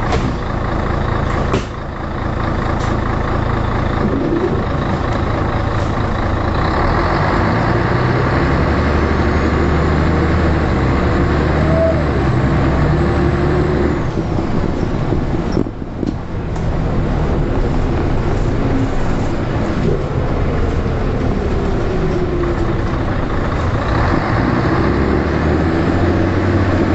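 Scania L113 bus's diesel engine, heard from inside the saloon, being worked hard as the bus drives on. Its pitch slides up and down, and the sound dips briefly about sixteen seconds in.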